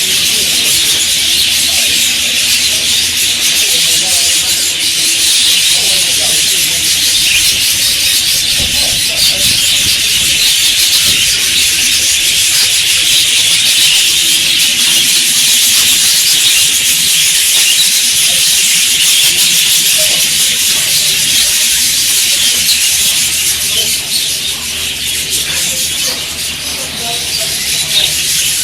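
A large flock of budgerigars chattering and twittering together, a dense steady wall of high-pitched bird noise.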